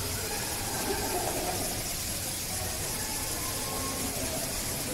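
Steady background noise, a constant hiss and low hum, with faint indistinct voices underneath.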